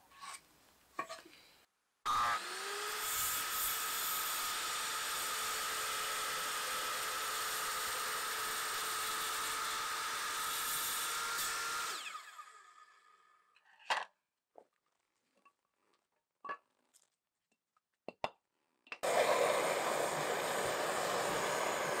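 A corded HiKOKI circular saw spins up about two seconds in, runs through a wooden plank for about ten seconds with a steady whine, then winds down. A few light knocks of wood being handled follow, and near the end a canister gas torch is lit, its flame rushing steadily as it chars the wood.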